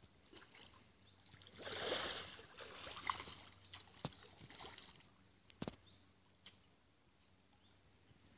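Quiet lake-edge water sounds: a soft rustle about two seconds in, then a few small splashes or clicks at the water's surface.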